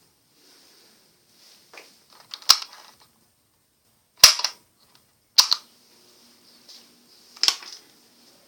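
Several sharp, loud clicks: four strong ones one to two seconds apart, with a couple of fainter ones before them.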